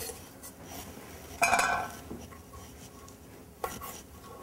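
Knife cutting linguiça sausage links apart on a wooden cutting board: light scraping, with a sharp knock that rings briefly about a second and a half in and a smaller click near the end.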